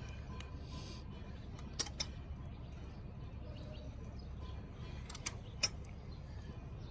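Sharp clicks or taps over a steady low hum: two close together about two seconds in, and two more near five and a half seconds, the last the loudest.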